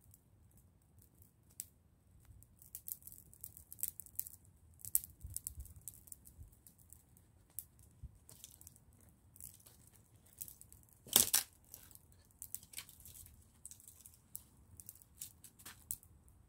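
Open wood fire crackling, with irregular sharp snaps and pops and one louder crack about eleven seconds in.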